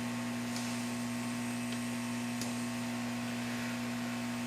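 Hot air tool blowing steadily with a low hum and an even hiss, heating components on the monitor's circuit board to hunt for a heat-sensitive fault. A few faint ticks sound over it.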